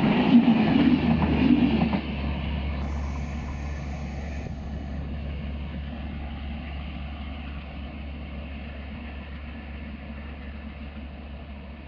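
Passenger train's coaches rattling past close by on the rails for about two seconds, then a sudden drop to a steady low rumble that fades as the train moves away down the track.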